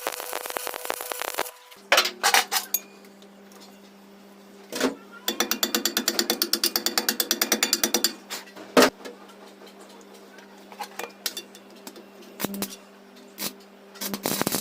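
Workshop metalworking sounds over a steady machine hum that starts about two seconds in: a few sharp metal clicks, two loud knocks, and between them a fast, even run of about nine clicks a second lasting roughly three seconds, like a ratchet or gear turning.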